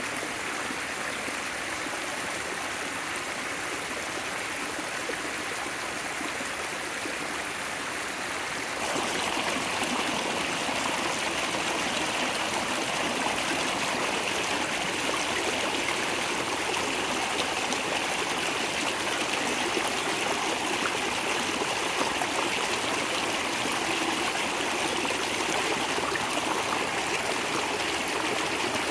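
Small mountain creek, running high after rain, rushing and splashing over rock ledges. The water becomes louder and fuller about nine seconds in.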